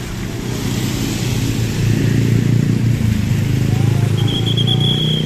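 Road traffic passing close by: the engines of minibuses and cars, swelling from about two seconds in as vehicles drive past. A short high whistle sounds near the end.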